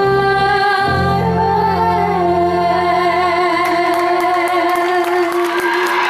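Two young singers hold the final sung note of a slow ballad duet over a recorded organ-like keyboard backing track, which stops about three and a half seconds in. The audience starts clapping soon after.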